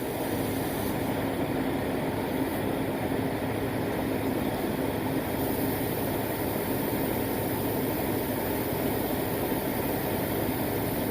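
An engine running steadily with an even, low hum, no change in pitch or level.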